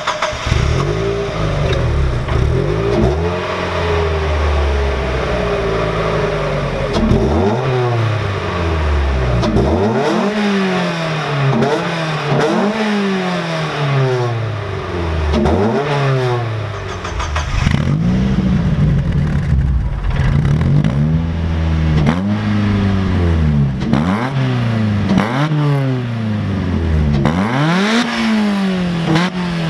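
Mazda Miata NB's four-cylinder engine on its stock exhaust, starting and idling, then revved in quick blips about every two seconds, each rising and falling in pitch. Near the end the same revs come through an M2 Motorsport aftermarket exhaust with its silencer fitted.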